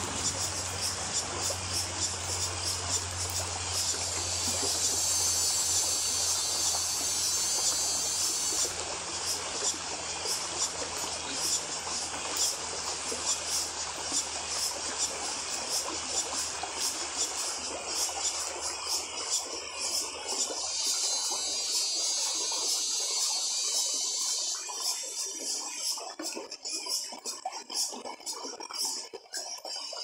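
Cicadas buzzing in a high, fast-pulsing drone that swells louder twice, over the steady rush of shallow river water running over rocks. Under them a low steady hum fades out a little over twenty seconds in.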